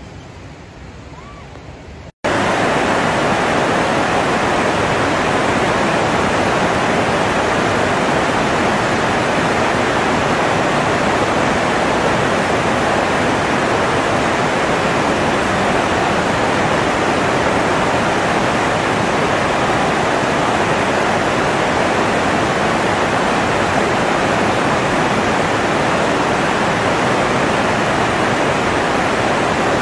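Loud, steady rush of fast-flowing river water, cutting in abruptly about two seconds in after a quieter stretch.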